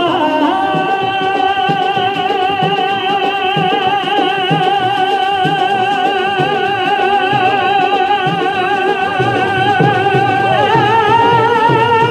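Pothwari sher singing: a male voice holds one long note with wide vibrato, stepping up in pitch near the end, over hand-drum strokes.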